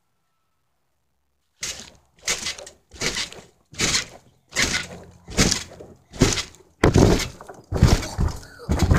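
A trampoline mat thumping and rustling under repeated bounces, with the recording device shaken on the mat at each landing. The bounces start suddenly about a second and a half in and run at about one every 0.7 seconds, around ten in all.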